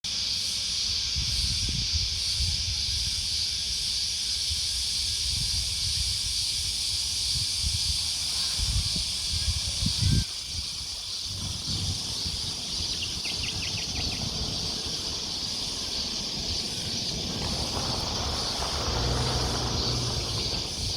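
Countryside roadside ambience: a steady, slightly pulsing high-pitched chorus of insects with an irregular low rumble underneath. There is a single knock about ten seconds in, a brief rapid run of chirps a few seconds later, and a vehicle approaching near the end.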